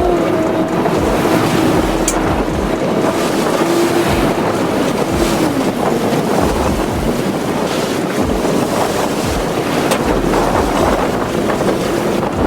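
Wind buffeting the microphone over a boat's engine hum and breaking surf; the engine hum dips and fades about five seconds in.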